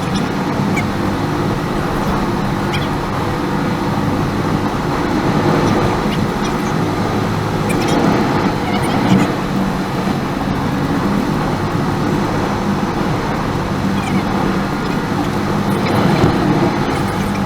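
Car driving: a steady engine drone and road noise, heard inside the car.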